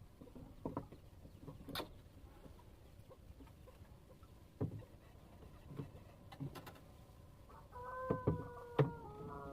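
A rooster crowing once, a faint call of about a second and a half near the end, falling slightly in pitch as it trails off. Scattered light knocks and taps come before it.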